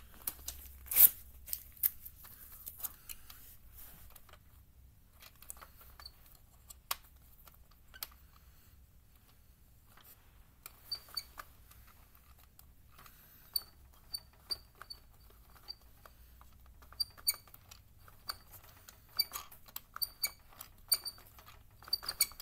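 Plastic toy conveyor belt worked by hand, carrying scraps of paper up its rubber belt: scattered light plastic clicks and taps, and from about halfway on, a run of short high squeaks and clicks as it is cranked.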